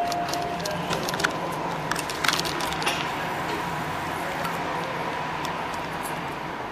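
Steady hum of a subway station concourse, with a scatter of sharp clicks and light rattles in the first three seconds.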